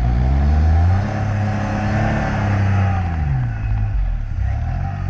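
A small open classic car's engine pulling hard on a steep grassy trials climb, its pitch rising in the first second, holding, then dropping about three seconds in and picking up again near the end.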